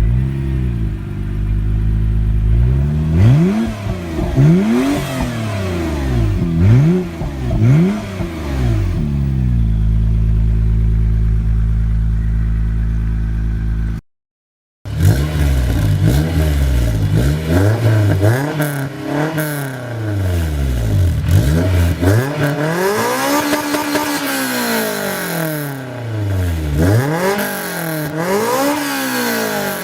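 Honda NSX V6 engine revved in several quick blips, then held at a steady speed. After a short break of silence, another car's engine is revved up and down over and over.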